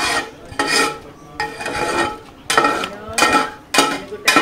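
A long-handled steel ladle scraping and knocking round a large metal cooking pot, stirring a thick stew in repeated strokes about every half second to second, each with a faint metallic ring. The stew is having fresh coconut oil mixed through it at the end of cooking.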